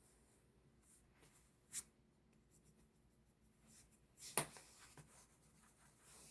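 Near silence with faint rustling, broken by two brief clicks: a light one about two seconds in and a sharper, louder one about four seconds in.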